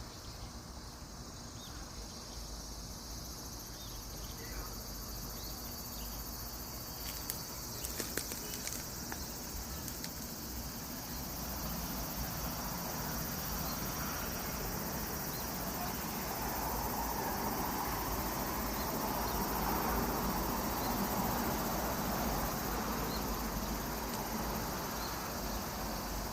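Cicadas singing in a steady, high, buzzing chorus. About halfway through, a lower-pitched buzz swells up and grows louder, then eases near the end.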